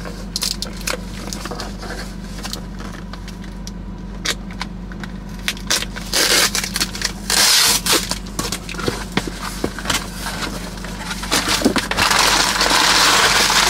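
A small cardboard box and its brown packing paper being handled and opened: scattered clicks and scrapes, with paper crinkling and rustling most strongly about six seconds in and again near the end.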